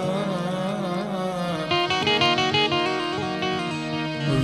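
A held sung note with vibrato from a devotional Gujarati invocation gives way, about a second and a half in, to an instrumental interlude. Harmonium and keyboard play a melody in quick stepped notes over a steady harmonium drone.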